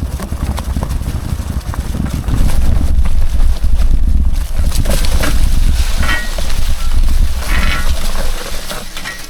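E-bike being ridden over a rough, overgrown trail: heavy wind rumble on the microphone with rattling and brush swishing against the bike. Short squeaky tones come twice in the second half, and the noise tails off near the end.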